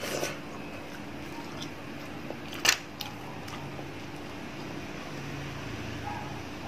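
Eating by hand from a plate of mussels and fish: a few light clicks of shell and fingers, and one sharp click about two and a half seconds in, the loudest sound, over a steady faint low hum.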